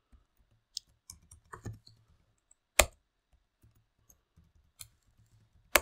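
Computer keyboard keys tapped as a password is typed at a Linux terminal: scattered light key clicks, with two sharper, louder strikes about three seconds apart as each entry is submitted with the Enter key.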